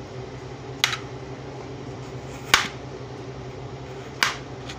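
A kitchen knife paring the green skin off firm watermelon rind, giving three crisp clicks evenly spaced about a second and a half apart, the middle one loudest, over a steady background hum.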